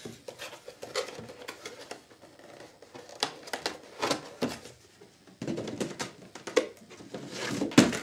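Cardboard packaging being handled and its flaps folded: irregular rustles, scrapes and light taps, with a sharper knock near the end.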